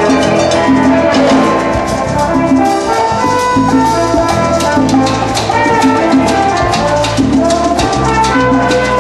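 Live salsa band playing: a busy, steady percussion rhythm under held melodic lines.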